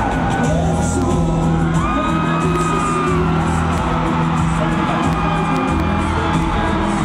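Live concert music over an arena sound system, with a deep steady bass line and long held notes, and the crowd whooping.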